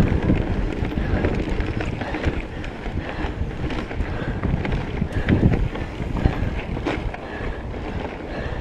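Wind buffeting the microphone of a mountain bike moving fast down a dirt singletrack, over the rumble of the tyres on the trail and sharp rattles and clicks from the bike over bumps.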